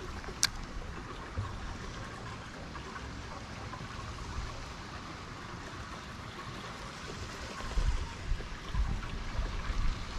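Gentle water lapping and trickling against a plastic kayak hull, with one sharp click about half a second in. Low wind buffets on the microphone come in near the end.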